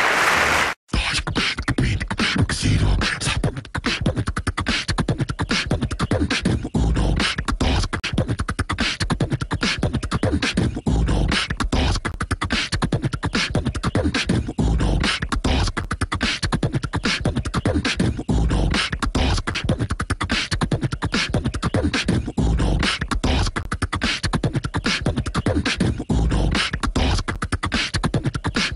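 Rhythmic music with a fast percussive beat and deep bass thumps, starting about a second in after a brief drop-out.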